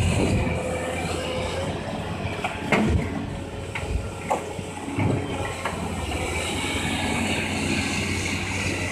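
Caterpillar 320C excavator's diesel engine running steadily under working load, with a few sharp knocks and clanks between about three and five seconds in.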